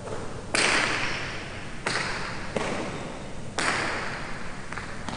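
Jai alai pelota hitting the court's walls and floor during a rally. There are four loud, sharp cracks about a second apart, then two fainter ones near the end, each followed by a long echo in the hall.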